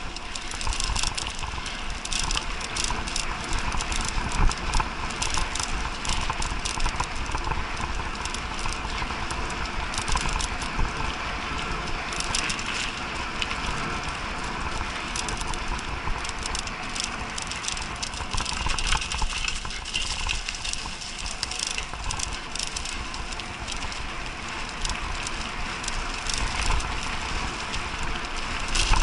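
Mountain bike ridden fast over a bumpy dirt forest track: steady tyre noise and rumble on the ground, with constant rattling and clicking from the bike as it jolts over the bumps.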